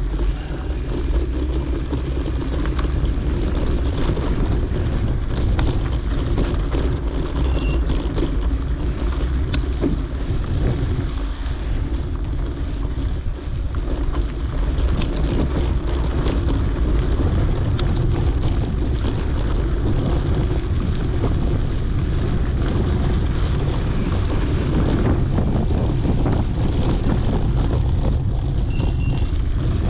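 Wind noise on the microphone of a camera riding along on a mountain bike on a dirt trail, dense and steady, with scattered small clicks and rattles. Two brief high buzzing sounds come about seven seconds in and again near the end.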